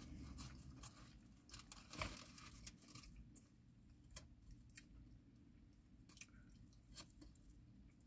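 Near silence with faint, scattered clicks of someone quietly chewing food.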